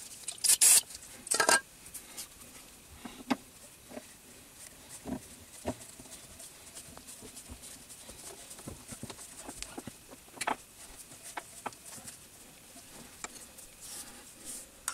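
Scattered light metallic clicks and knocks of small turned metal parts being handled at a stopped lathe's chuck, with two louder clatters near the start.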